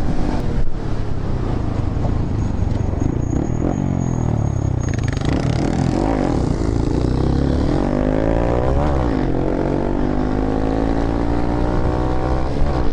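Honda Grom's small single-cylinder motorcycle engine running on the move. Its pitch falls and rises several times as the throttle is eased and opened, then climbs steadily in the second half, over road and wind rumble.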